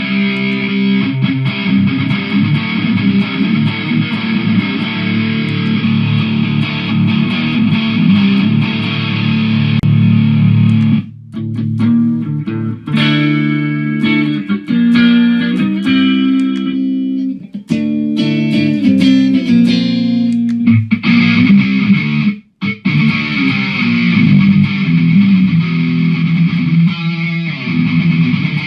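Electric guitar played through a Mooer GE150 multi-effects pedal with a distorted tone. It breaks off briefly about eleven seconds in and again near twenty-two seconds. In between the tone is less dense, with single notes standing out more clearly.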